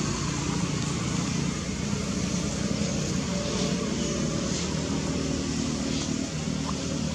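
A steady low mechanical hum with a constant hiss over it.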